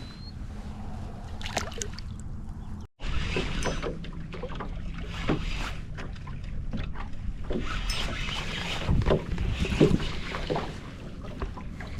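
Wind on the microphone over a small boat on the water, with scattered knocks and rustles of handling. The sound drops out briefly about three seconds in.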